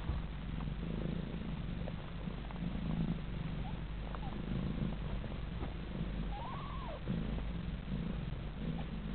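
Siamese cat purring steadily, the low purr swelling and easing about once a second with its breathing. A faint brief squeak rises and falls about six and a half seconds in.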